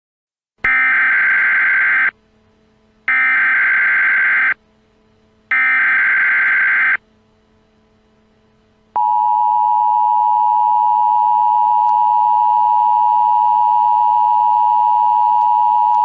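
Emergency Alert System broadcast tones: three identical bursts of warbling SAME digital header data, each about a second and a half long. About nine seconds in, the steady two-tone EAS attention signal begins and holds.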